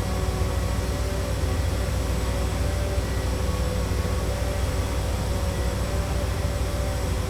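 Steady city street din: a constant low rumble of traffic and construction machinery, with a steady mechanical hum over it.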